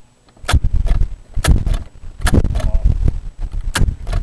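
A series of heavy thumps and clunks, about five in a few seconds, from a cassette being handled and loaded into a boombox's tape deck close to the microphone.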